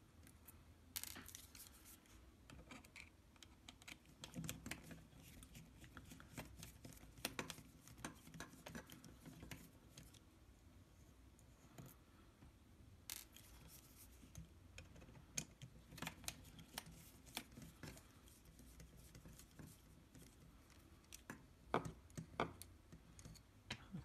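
Faint, scattered clicks and scratches of a DJI Phantom 4 camera gimbal's plastic housing and flex ribbon cables being handled.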